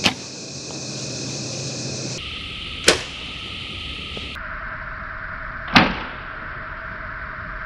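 Compound bow firing: a single sharp snap of the string and limbs at release, heard three times about three seconds apart over a steady hiss.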